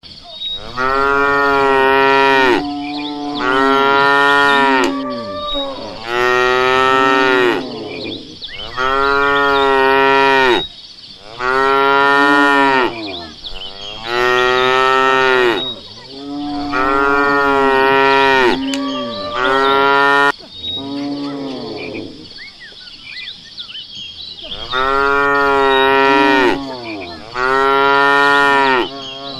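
Cow mooing over and over: long, drawn-out moos, each rising and then falling in pitch, one every two to three seconds, with a short pause about two-thirds of the way through.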